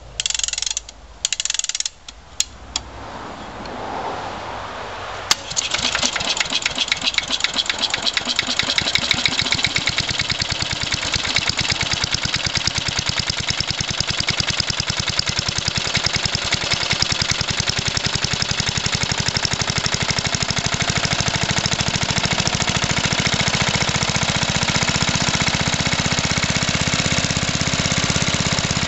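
1966 Briggs and Stratton 3.5 hp single-cylinder lawn mower engine on a wind-up spring starter: a few clicks, a rising whirr as the engine turns over, then about five seconds in it fires and settles into steady running.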